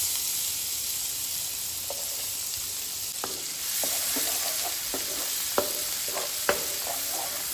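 Finely chopped onion sizzling in hot oil and butter in a nonstick pan, being stirred with a wooden spatula, with scattered light scrapes and taps of the spatula over a steady hiss. It is the start of frying the onion toward golden brown for a masala gravy base.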